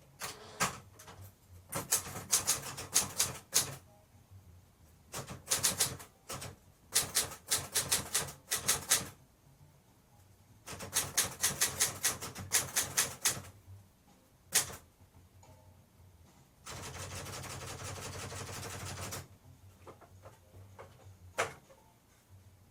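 Olivetti Linea 88 manual typewriter being typed on: quick runs of key strikes in several bursts with short pauses between them. Near the end comes a steady rushing sound lasting a couple of seconds, then a single click.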